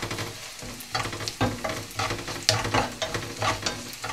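Wooden spatula stirring and scraping onions, curry leaves and green chillies frying in oil in a non-stick pan, with a steady sizzle and irregular scrapes a few times a second. The onions are being fried until they brown.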